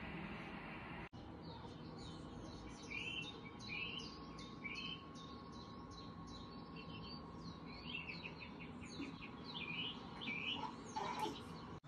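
Birds chirping: runs of short, quick high notes repeated over and over, starting about two seconds in, over a faint steady room hum.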